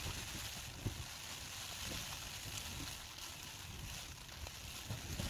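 Rain on a tent's fabric, heard from inside the tent as a steady hiss, with wind buffeting low underneath.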